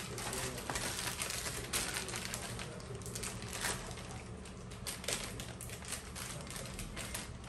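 Plastic packaging wrap being handled and crumpled, giving an irregular run of light crinkles and sharp crackling clicks.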